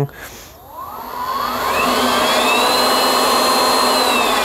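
Two 12-volt electric camping air pumps, the blowers of a gas forge, whirring as a PWM speed controller turns them up: a whine rises steadily in pitch for about two seconds, holds, and begins to fall again near the end.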